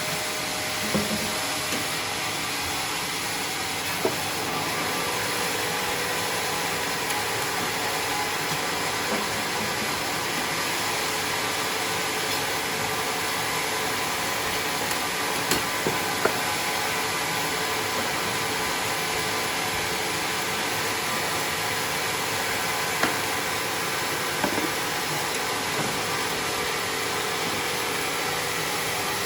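A sawmill running steadily with a constant hissing machine noise and a faint steady hum, and a few short knocks scattered through it.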